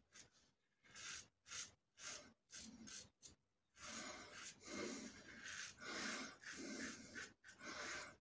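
Strokes of a Merkur 34 G HD double-edge safety razor with a Wilkinson Sword blade, scraping through lathered stubble on a pass against the grain. The strokes are short and separate at about two a second, then from about four seconds in they come longer and closer together.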